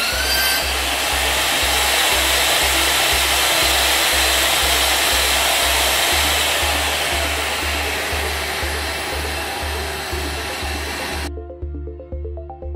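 HDPE butt fusion welding machine running during pipe facing, a loud steady noise that slowly fades and cuts off abruptly near the end. Background music with a steady beat plays underneath.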